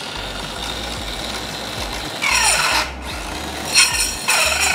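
Cordless HiKOKI CD14DFL tip-saw cut-off machine, its carbide-tipped blade spinning with a steady whine. About two seconds in, and again near the end, it cuts into a threaded rod: louder and harsher, with the motor pitch sagging under the load.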